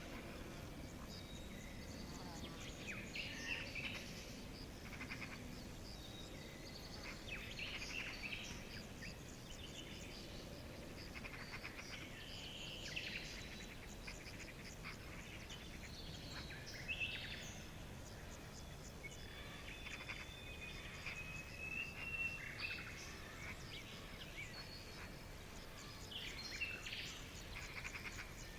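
Several birds chirping and calling, short calls scattered throughout with a few longer whistled notes, over a steady background hiss.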